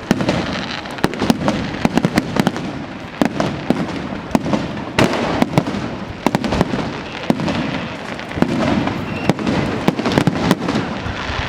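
Fireworks display: a constant barrage of sharp crackling pops and bangs over a dense hiss and rumble of bursting shells, with a heavier bang about five seconds in.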